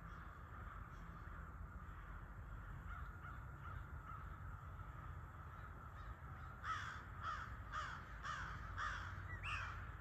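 Harsh animal calls: faint repeated calling throughout, then a run of about six louder calls roughly half a second apart in the last few seconds.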